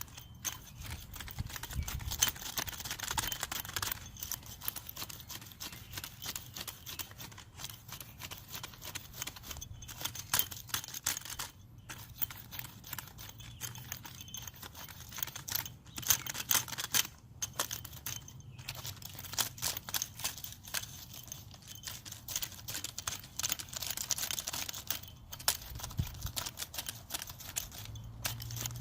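Garden weasel's rotary tines worked back and forth through freshly spread topsoil, breaking it up and blending it into the soil beneath: a continuous gritty scraping and crunching with many sharp clicks.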